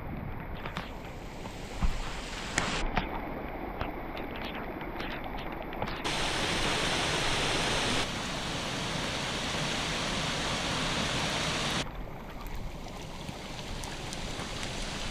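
Storm runoff rushing down a hiking trail that heavy typhoon rain has turned into a stream, with steady rain. The rushing gets abruptly louder about six seconds in and drops back about twelve seconds in, with a couple of sharp knocks around two seconds in.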